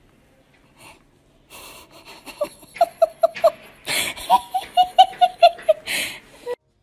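A person laughing in two runs of quick, high-pitched giggles, about five a second, starting after a near-silent second or so. Sharp gasping breaths come between the runs and near the end.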